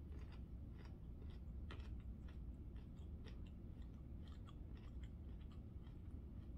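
A person chewing a mouthful of food with the mouth close to the microphone: faint, irregular small clicks of the mouth and food throughout, over a low steady hum.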